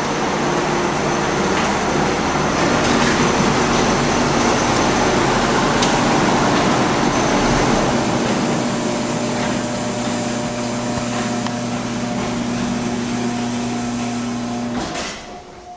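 Oldsmobile's engine running as the car pulls into the garage and idles, while the garage door runs down shut behind it. The steady hum stops abruptly about a second before the end.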